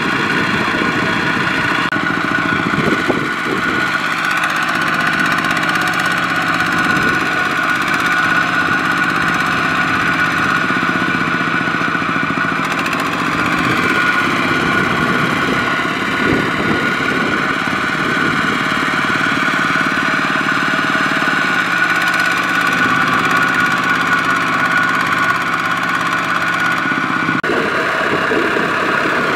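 Single-cylinder diesel engine of a two-wheel walking tractor running steadily under load as it hauls a loaded cart through mud.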